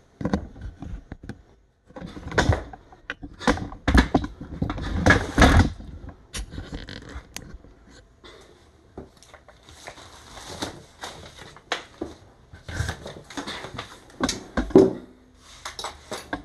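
Irregular knocks, taps and clicks with some rustling and scraping, a cluster of louder knocks around four to six seconds in.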